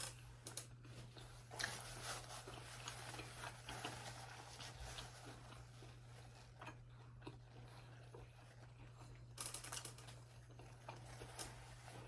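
A person quietly chewing a bite of steak, with soft mouth clicks and wet smacks, a little more busily about ten seconds in, over a steady low electrical hum.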